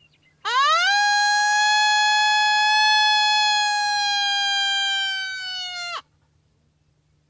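A long single coyote howl, the lone howl that coyote hunters blow on a howler call to draw coyotes in. It rises quickly at the start, holds one steady pitch for about five seconds, sags slightly and then drops off sharply.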